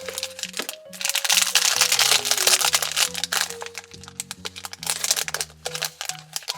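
Plastic toy packaging crinkling and crackling as it is handled, thickest in the first half, over background music with a low bass line.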